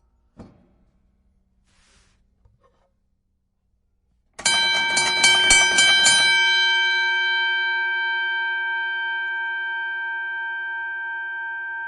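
Boxing ring bell struck rapidly about eight times in under two seconds, then left ringing, its tone fading slowly with a slight wobble. A few faint knocks come before it.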